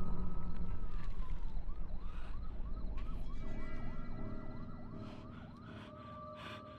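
Emergency-vehicle siren: one long wail that rises and then falls, switching to a quick yelp of about three rises a second. A low rumble under it fades away over the first few seconds.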